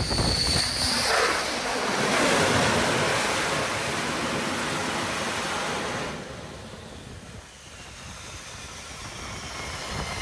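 Jet engines of a MiG-29K fighter running loud as it comes in and lands on an aircraft carrier deck. The noise swells in the first couple of seconds, drops off sharply about six seconds in, and a high engine whine rises near the end.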